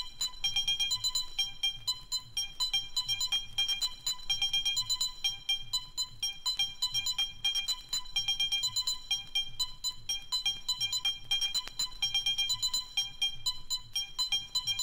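Intro of an early-1990s Valencia dance-music (bakalao) 12-inch track: a fast, repeating rhythm of short, high pitched percussive tones and ticks, with little bass.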